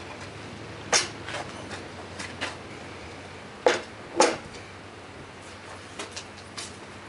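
Heavy 104 lb Parker 4X bench vise being lifted off its stand and set down: a metal clunk about a second in, then two louder knocks close together around four seconds in, with a few lighter clicks and rattles between.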